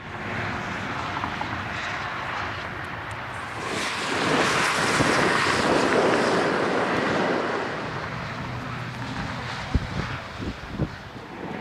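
Motorway traffic passing beneath an overpass: a steady rush of tyres and engines that swells as a vehicle goes by in the middle and then fades. Wind buffets the microphone, and there are a few sharp knocks near the end.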